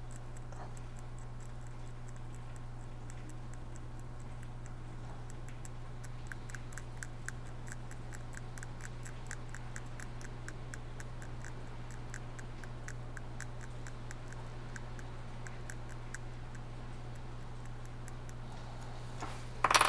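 Faint, rapid scratching ticks, about four a second, as a fine blade or pick scrapes corrosion and solder mask off a burnt test point and trace on a MacBook logic board. A steady low hum sits under it, and a short louder knock comes just before the end.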